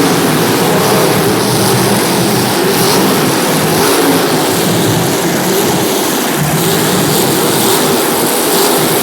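Several demolition derby cars' engines revving together in a loud, steady din, their pitches wavering up and down.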